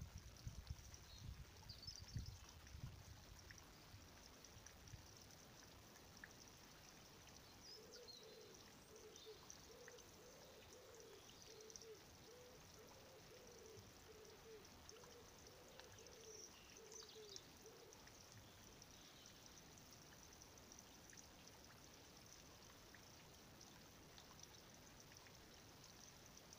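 Near silence: faint garden background hiss, with a low wavering bird call repeating for about ten seconds in the middle and a few faint high chirps.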